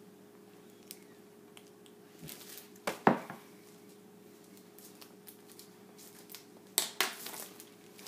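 A workbook in a clear plastic sleeve being handled and set down: light rustling with a few sharp knocks, the loudest about three seconds in and another near seven seconds. A faint steady hum lies underneath.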